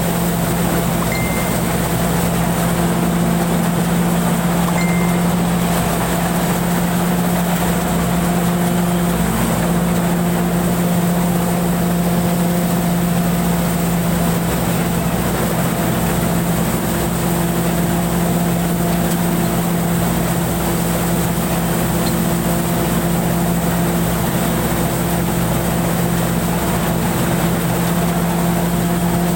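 Rice combine harvester built by Pan Charoen Kan Chang, its engine and threshing machinery running steadily with a constant low hum, heard from the driver's seat while harvesting.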